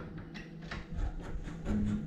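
Metal tower bolt at the top of a wooden door being worked by hand: a scatter of faint scrapes and small clicks as the bolt slides in its keeper.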